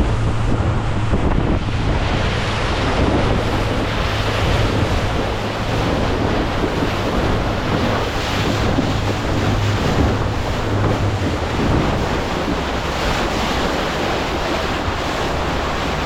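Wind buffeting the microphone over the rush of water past a moving motorboat, with a low steady engine hum that weakens about eleven seconds in.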